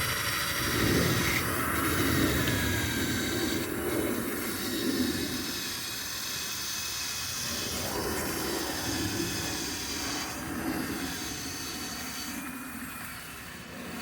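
Electric drill spinning a felt buffing pad with cerium oxide polish on the cut edge of a glass bottle: a steady motor whine over the hiss of the pad rubbing the glass, its level rising and falling a little.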